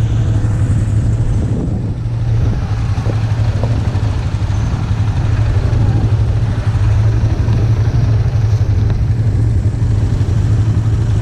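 ATV engine running at idle, a steady low hum with no revving.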